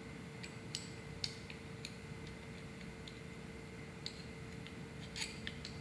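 Steel wrenches clicking and clinking lightly on a metal fitting as two wrenches are used to tighten a thread adapter onto a fuel pressure sending unit. The light, irregular clicks come about a dozen times over a faint steady hum.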